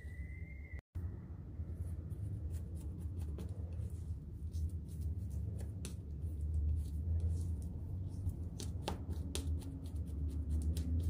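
Palette knife crunching and scraping through shards of frozen acrylic paint, a dense run of small clicks and crackles as the pieces break and smear, over a steady low hum. A high tone at the start cuts off at a short dropout about a second in.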